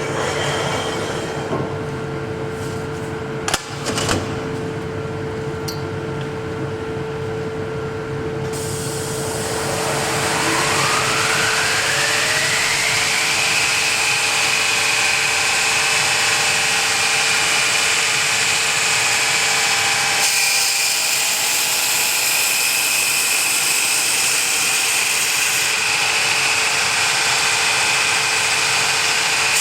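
Industrial abrasive-belt bevel grinder (UKF 4.0-3000). A steady hum with two sharp knocks about three and a half seconds in, then the belt drive runs up to speed from about nine seconds in, its whine rising over about four seconds to a steady high pitch. It then runs at full speed with a loud hiss from the belt.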